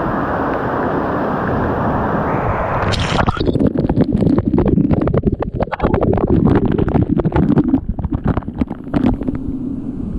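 A steady rushing noise, then about three seconds in, rapid irregular buffeting and rumbling of wind on the microphone.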